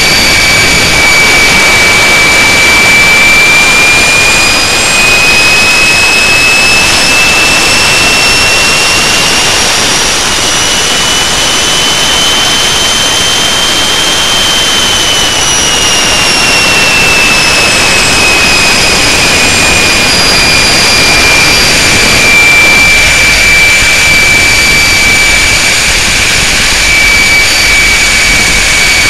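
Walter M701-500 turbojet running loud on a test stand: a steady roar with a high whine on top. The whine rises slowly in pitch as the engine speeds up to around 60 percent rpm, holds, then falls back as it slows again.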